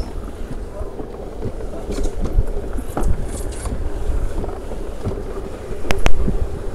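Wind buffeting the microphone in an uneven low rumble, with a pair of sharp clicks about six seconds in.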